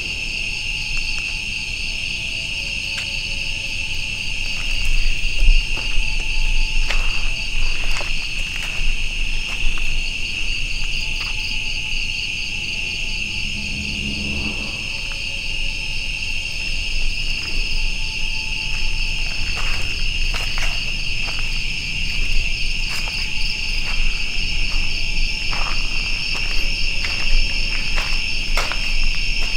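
Dense chorus of insects: a steady high trill with a faster pulsing layer above it, with a few scattered light clicks.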